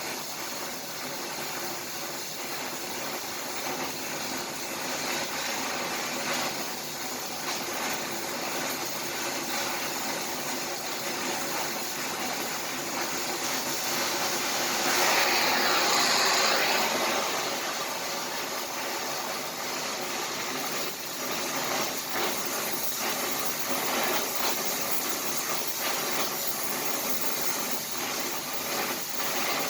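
Electric arc welding: a steady crackling hiss from the arc, louder for a couple of seconds about halfway through.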